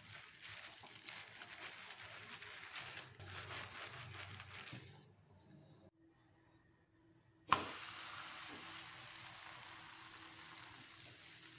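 Plastic sheet rustling softly under a wooden rolling pin as corn-flour dough is rolled out. After a short break, a steady sizzle begins: a makki roti cooking on a hot iron tava.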